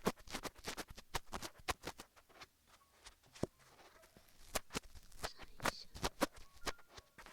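Ear-touch ASMR: fingers rubbing and pressing on a binaural microphone's ears, making quick, irregular crackling clicks several times a second, sparser for a moment in the middle.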